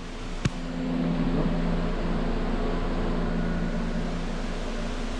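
Steady mechanical hum with a low drone, broken by a single sharp click about half a second in.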